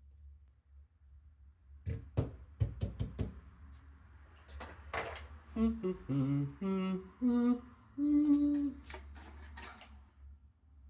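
A man humming a short tune, a run of held notes at changing pitches, after several light clicks and taps.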